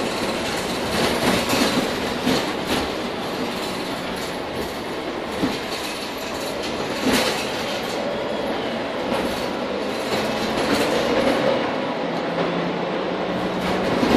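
Mercedes-Benz Citaro K city bus driving, heard from inside the passenger cabin: steady engine and road noise with frequent short knocks.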